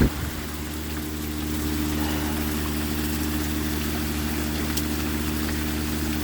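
Water pump running steadily with a constant low hum, draining water off the top of a pool, under the hiss of heavy rain. There is a single sharp knock right at the start.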